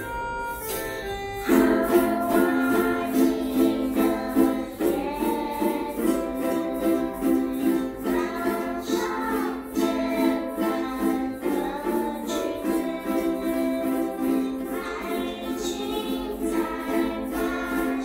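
Children's ukulele ensemble playing together, strumming chords in a steady rhythm. The strummed chords come in louder about a second and a half in, after a short single-note melody.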